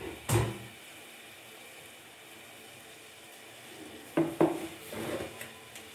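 Kitchen utensils knocking and clinking: one sharp knock just after the start, a faint steady hiss through the middle, then a cluster of knocks and clinks in the last two seconds.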